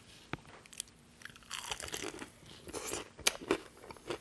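Crunching bites into a crispy breaded KFC hot wing, then chewing. A few small clicks come first, then a dense crackle of crunching from about a second and a half in, with a couple of sharp snaps near the end.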